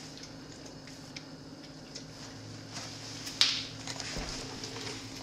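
Dog licking and lapping whipped topping from a plastic tub, with small wet clicks, and one sharp knock about three and a half seconds in as it gets hold of the plastic.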